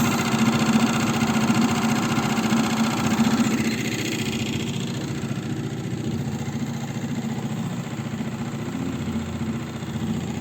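Mercury 3.5 hp outboard motor idling steadily as it warms up. It runs a little louder for the first few seconds, then settles.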